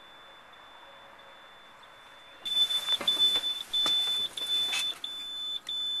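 Warning buzzer in the cab of a 2007 International semi tractor, beeping in an even series of short, high, single-pitched beeps, about one and a half a second. It starts a couple of seconds in, among rustling and a few knocks.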